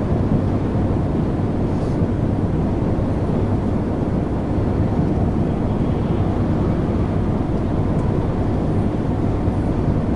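Inside a lorry's cab on the motorway: the truck's engine drones steadily under tyre and road noise while it cruises at an even speed.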